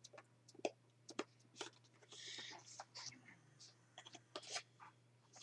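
Faint scattered clicks and a brief soft rustle about two seconds in, from handling a flash card while changing cards, over a low steady hum.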